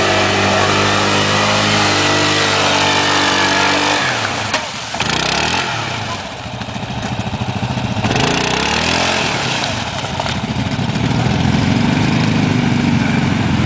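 ATV engine running hard as the quad churns through deep mud, holding high revs for a few seconds, dipping briefly, then revving up and down and holding high again as it bogs down with wheels spinning.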